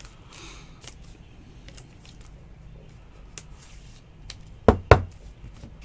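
Trading cards and plastic card holders being handled: faint scattered ticks and rustles, then two sharp clicks close together near the end.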